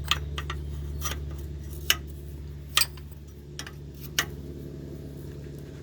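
A wrench clinking against metal oil line fittings as the connectors are checked for tightness: a scattered series of sharp clicks, the loudest about two seconds in and near three and four seconds. A steady low hum runs underneath.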